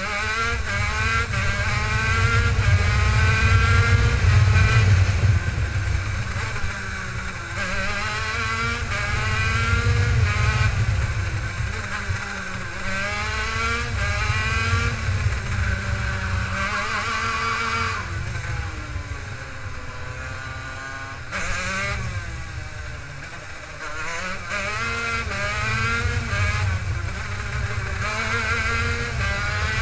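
Racing kart engine heard from onboard, its pitch climbing repeatedly as it accelerates along the straights and dropping back under braking for the corners, over a low rumble.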